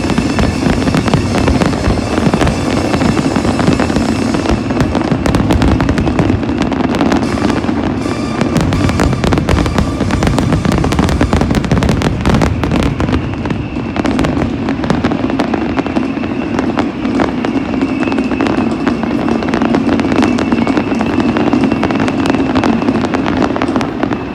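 Fireworks display with dense, rapid bangs and crackling, over music playing loudly throughout.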